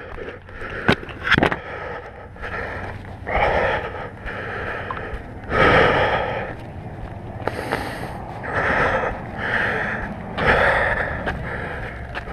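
A man panting hard, one heavy breath every second or so, with a few sharp knocks in the first second and a half. It is a motorcyclist out of breath and shaken just after crashing his bike.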